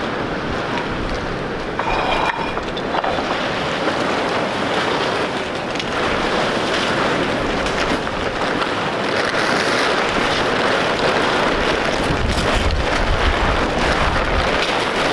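Strong gusty wind buffeting the microphone, with heavier low buffeting near the end, mixed with the crackle and flap of tarps being pulled off a greenhouse in the wind.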